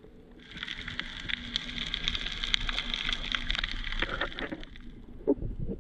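Underwater sound picked up by a diving camera moving over a coral reef: a steady wash with a dense crackle of tiny clicks and a low rumble.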